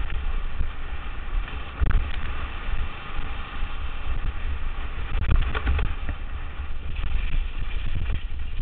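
Wind buffeting a camera microphone while rolling fast down a rough lane, with a steady rumble. There are a few harder knocks from bumps about two seconds in and again around five to six seconds.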